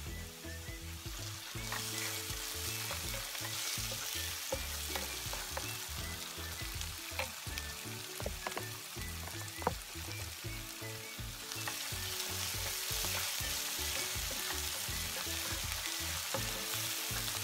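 Diced onion and chermoula sizzling in oil in a non-stick frying pan, stirred with a wooden spatula that clicks and scrapes against the pan. The sizzle grows louder about two seconds in and again later on.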